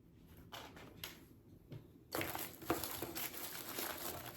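A few light handling clicks, then from about two seconds in, steady crinkling of packaging being handled as items are taken out of a mystery box.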